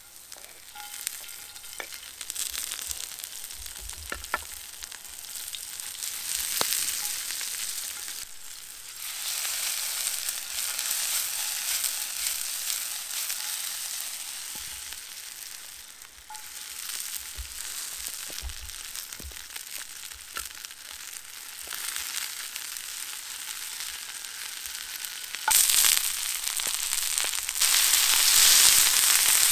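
Vegetables frying in oil in a pan over a campfire: a steady sizzle that swells about nine seconds in and is loudest over the last four seconds. A few light clicks come through in the first seconds.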